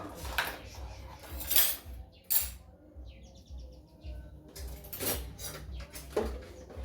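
A knife peeling sweet potatoes: a series of short rasping scrapes with some utensil clatter. A bird gives a brief twitter about three seconds in.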